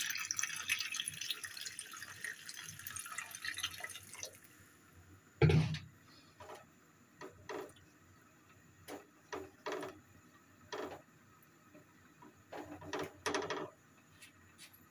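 Water poured from a jug into a pot of potatoes, running for about four seconds and trailing off. Then a loud knock, followed by a series of short, lighter clunks as the potatoes are moved around in the pot by hand.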